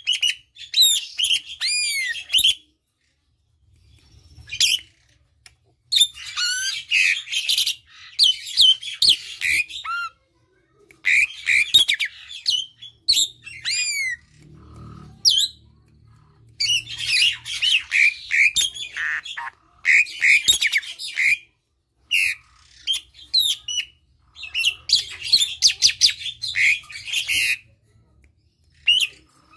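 Asian pied starling (jalak suren) singing in bursts of quick chirps, whistles and harsh squawky notes, with pauses of a second or two between phrases.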